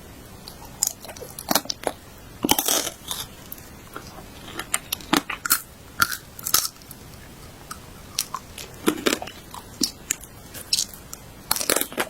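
Crisp food being bitten and chewed close to the microphone: irregular sharp crunches, some alone and some in quick clusters, over a steady background hiss.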